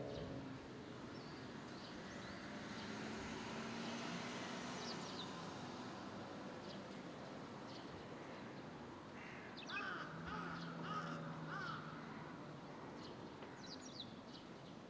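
A crow cawing several times, most clearly in a short run about two-thirds of the way in, over a faint outdoor hiss. Brief high chirps from small birds are scattered through it.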